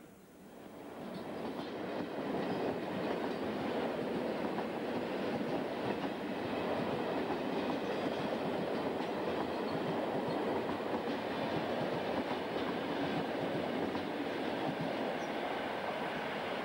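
Freight train of covered sliding-wall wagons rolling past at close range: a steady rumble and clatter of wheels on rail. It builds up over the first two seconds, then holds steady.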